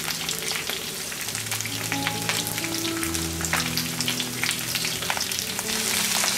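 Sliced leek and onion sizzling in hot chili oil in a wok over high heat, with a steady crackle of fine pops.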